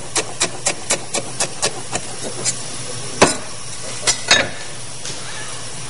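Knife chopping herb leaves on a cutting board: quick sharp chops, about four a second, then slowing after about two and a half seconds. The loudest chop comes about three seconds in and two more follow just after four seconds.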